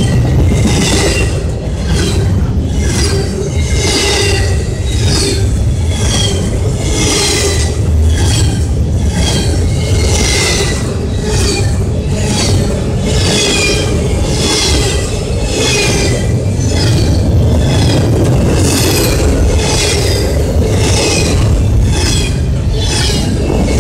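Double-stack container freight train passing close by: a loud, steady rumble of steel wheels on the rail, with high-pitched wheel noise pulsing in a regular rhythm, more than once a second.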